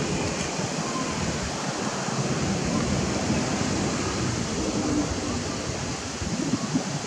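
Steady rushing wind with gusty buffeting on the microphone, as the weather turns before rain.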